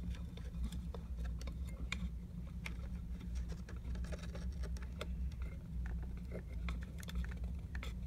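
Soldering iron held on a wire joint at a battery cell terminal: scattered faint ticks and crackles over a steady low hum. The iron is too low in wattage to flow the solder properly.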